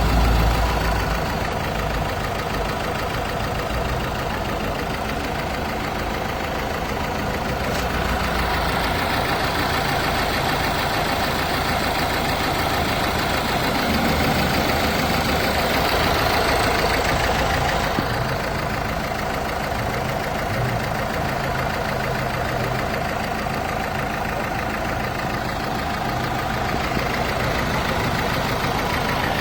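Renault/Dacia 1.5 dCi four-cylinder diesel engine, fitted with a Delphi high-pressure fuel pump, idling steadily.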